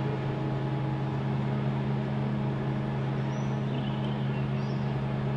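Heavy machinery running at a steady speed, a constant low hum that does not change.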